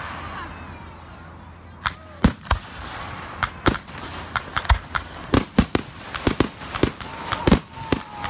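Fireworks exploding in a string of sharp bangs, a few at first and then coming faster and closer together, with a falling whistling tone near the end.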